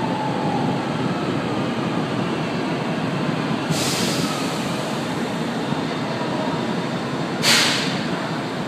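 São Paulo Metro train cars running slowly past close by with a steady rumble. A short burst of hiss comes about four seconds in and a louder one near the end.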